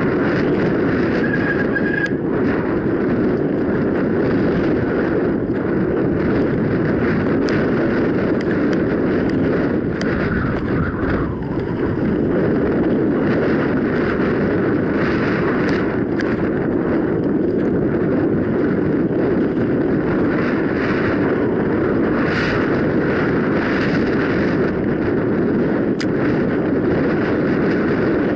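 Mountain bike riding a trail: a steady rumble of wind buffeting and tyre noise on a bike- or rider-mounted camera's microphone, with scattered clicks and rattles from the bike over rough ground and a brief high squeak about a second and a half in.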